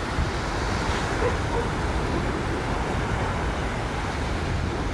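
Steady rumble of wind on the microphone over the wash of small surf breaking on a sandy beach, with no single event standing out.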